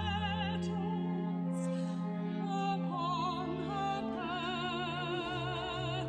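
Tenor singing a classical-style song with vibrato, drawing out the word "petals" and then holding long notes over a sustained instrumental accompaniment.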